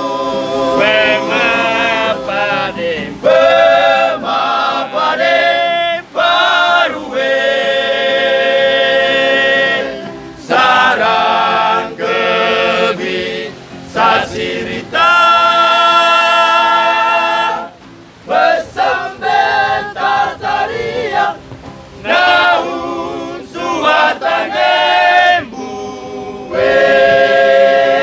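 A group of men singing together in chorus without instruments, in phrases of long held notes with short breaks between them.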